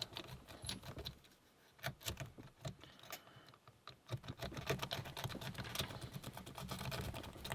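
A lock pick rake scrubbing in and out of a Burg Wächter Karat padlock's pin-tumbler keyway: a quick, irregular run of light metallic clicks and scrapes as the rake bounces over the pins, with short pauses about a second and a half in and again around four seconds. The raking does not open the lock.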